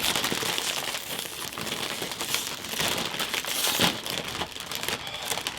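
Ruffles potato chip bags crinkling steadily as they are handled and hands rummage inside for chips.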